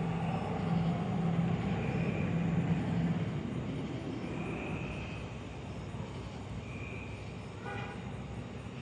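A low, steady rumble over outdoor background noise, loudest in the first three seconds and then easing off.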